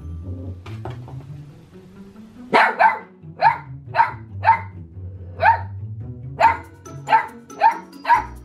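Mini goldendoodle puppy barking: about ten short, high yaps, starting about two and a half seconds in and coming every half second or so, over background music.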